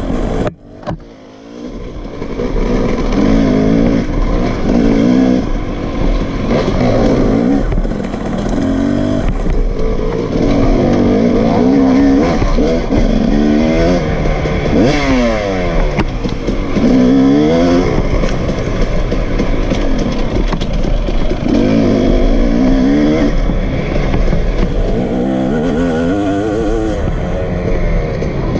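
KTM two-stroke dirt bike engine, ridden hard, its revs rising and falling again and again as the rider works the throttle and gears. The sound drops away sharply about a second in, then builds back up.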